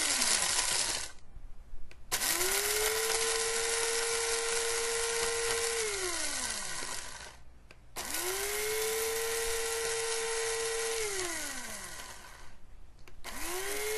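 Bodum Bistro electric blade coffee grinder grinding whole coffee beans in pulses. Its motor whines up to speed, runs steadily for about four seconds with a loud hiss, then winds down in a falling pitch when the button is released. One pulse is ending at the start, and new ones begin about two, eight and thirteen seconds in.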